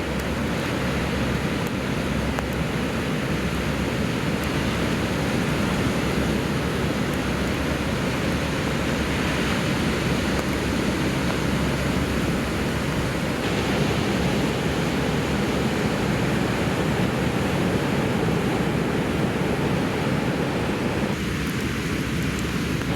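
Steady wash of ocean surf breaking, with wind rumbling on the microphone.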